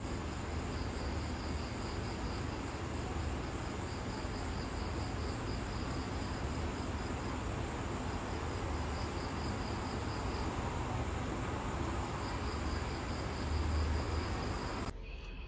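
Insects trilling in high-pitched pulsed trains that pause now and then, over a steady background hiss.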